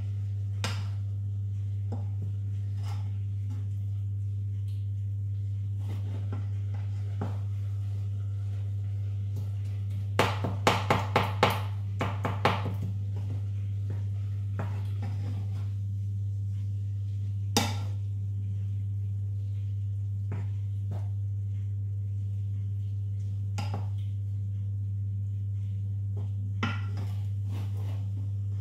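Wooden spoon knocking and scraping against a metal saucepan while stirring mince. There is a quick run of about seven knocks around the middle and a single sharp knock a few seconds later, over a steady low hum.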